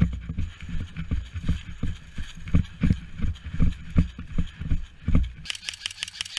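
Running footsteps of an airsoft player on a body-worn camera: heavy thuds about three a second. Near the end they give way abruptly to a quick, even series of sharp clicks.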